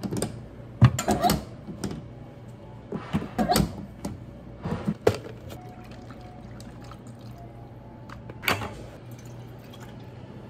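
Knocks and clinks of plastic drink bottles and a cup of ice being handled on a counter, then milk pouring from a carton with a steady, faint trickle.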